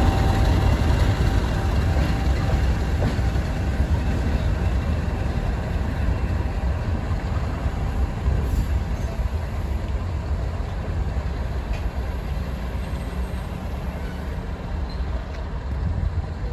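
GB Railfreight Class 50 diesel locomotive, with its English Electric 16-cylinder engine, pulling away along the line. Its low engine rumble fades slowly as it draws off.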